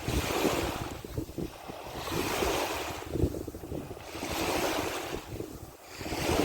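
Sea water rushing and washing in surges about every two seconds, with wind buffeting the microphone.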